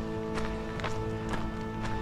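Background music: sustained chord tones over a light, steady percussive beat of about two strikes a second.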